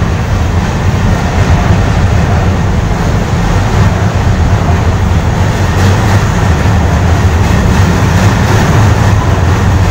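A long train passing close by: a loud, steady rumble that lasts throughout.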